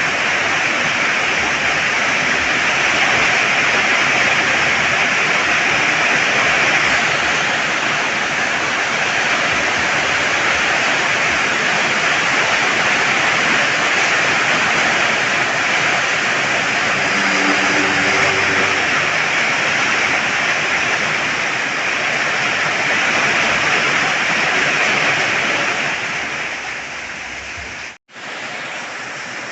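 Heavy rain pouring down, a steady hiss. It eases slightly near the end, breaks off for an instant and resumes a little quieter.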